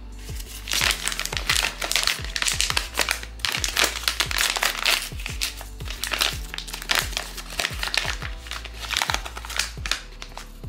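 A blind box's crinkly inner wrapper being pulled open and unwrapped by hand, in repeated bursts from about a second in until near the end, over background music.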